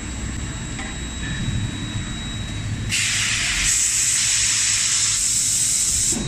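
Compressed-air jet on an automatic forging line: a loud hiss starts about three seconds in, grows sharper about a second later, and cuts off suddenly near the end. Under it is a steady machinery hum with a faint high whine.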